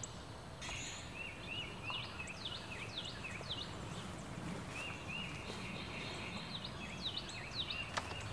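Songbirds chirping, a run of short rising-and-falling notes repeated several times a second, over steady outdoor background noise.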